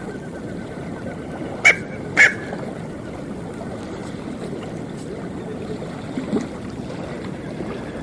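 Smew calling: two short, sharp calls about half a second apart, around two seconds in, over a steady background hiss.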